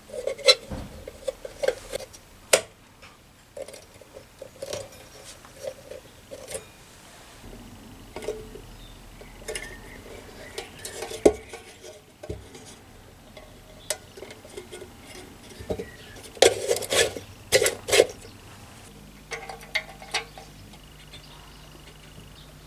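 Small metal parts of an old lantern being handled, with irregular clinks and taps and a quick flurry of louder clinks a few seconds before the end. A faint low hum comes in near the end.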